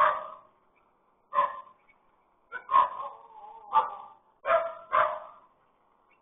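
Dog barking, about six sharp barks at irregular intervals, heard through a CCTV camera's thin-sounding microphone.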